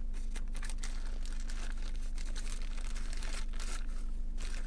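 A paper food wrapper crinkling and rustling in irregular bursts as it is peeled back and lifted out of a plastic takeout container.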